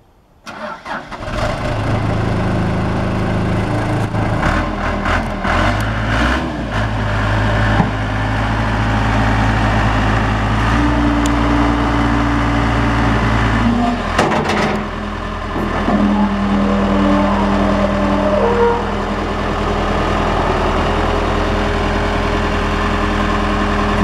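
Case 580D backhoe loader's engine cranking and catching about half a second in, then running. Its note shifts up and down several times as the loader arms raise and lower the bucket, with a few short knocks along the way.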